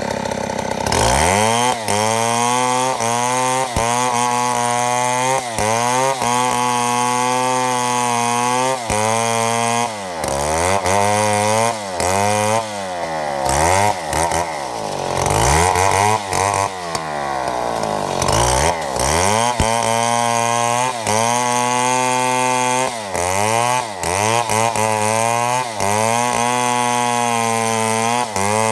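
Chainsaw at high throttle milling a mahogany log into boards, revving up about a second in. Its engine pitch rises and falls again and again under the load of the cut, with a few brief drops.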